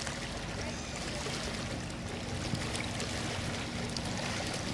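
Twin diesel engines of the Lake Constance passenger motor ship Graf Zeppelin giving a steady low hum as it comes into harbour, over a steady wash of water.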